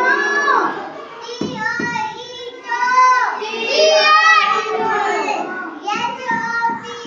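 Young children singing together in unison, held notes rising and falling in a repeating phonics tune.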